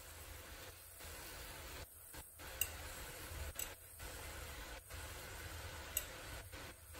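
A steady hiss from the pot of vegetables on the stove as cooked rice is spooned in, with three sharp ticks of a metal spoon against a glass bowl.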